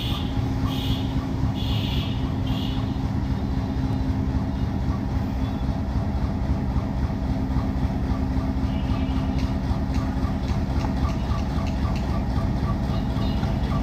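Diesel locomotive engine running with a steady low drone as it hauls a passenger train slowly in along the track.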